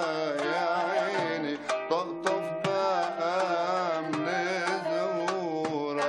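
Arabic music: a wavering, ornamented melody with vibrato over regular hand-drum strikes.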